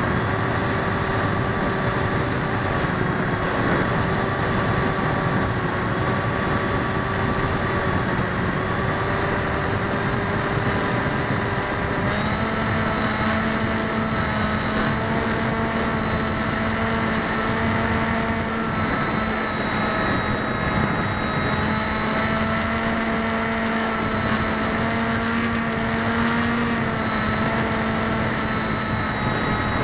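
Electric motor and propeller whine of a radio-controlled aircraft, with several steady tones that shift in pitch as the throttle changes, one of them dropping in and others shifting about twelve seconds in. Heavy wind rush over the microphone throughout; the propellers are unbalanced.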